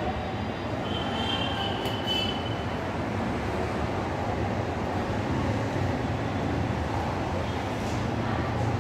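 Steady low rumbling noise, with a brief high squealing tone about a second in.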